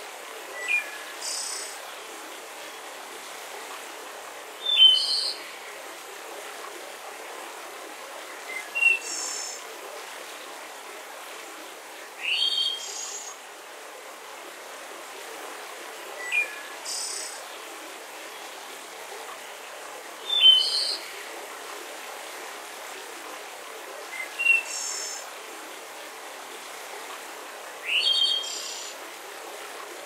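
Steady rush of a waterfall, with short bird calls about every four seconds: each a quick chirp followed by a higher, buzzy note, in a pattern that repeats.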